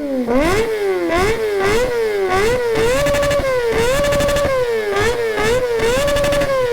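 A Kawasaki ZX-25R's 250 cc inline-four, fitted with a short slip-on aftermarket exhaust, is revved hard and repeatedly with the bike standing still. It goes in quick throttle blips, about two a second, that rise and fall in pitch, with a few brief holds at high revs. The sound is very loud, painful to the ears.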